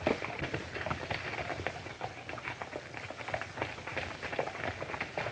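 Hoofbeats of several horses ridden together on a dirt road: a dense, uneven patter of hoof strikes over the steady hiss of an old film soundtrack.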